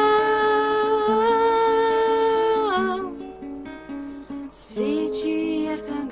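A singer holds one long note over a fingerpicked acoustic guitar. After about three seconds the voice stops and the guitar carries on alone, with a short sung phrase near the end.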